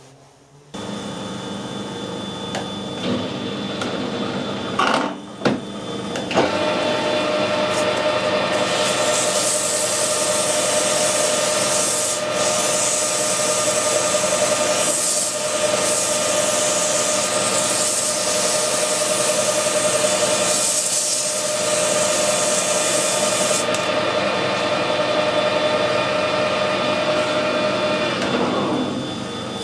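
A metal lathe starts up and runs steadily while a flat file is held against the spinning steel shaft of a lathe live centre, with a long rasping rub as the worn end of the shaft is polished. Near the end the lathe spins down, its hum falling in pitch.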